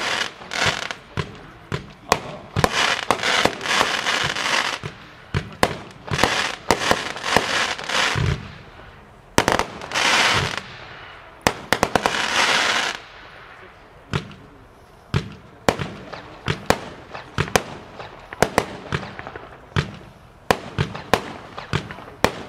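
Consumer fireworks going off: a rapid run of sharp bangs mixed with long stretches of crackling and hissing, thinning to scattered bangs after about thirteen seconds.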